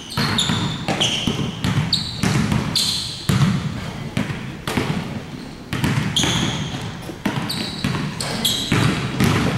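Basketball bouncing and players' sneakers squeaking on a hardwood gym floor during a shooting drill: a steady run of ball thumps mixed with many short, high-pitched sneaker squeaks.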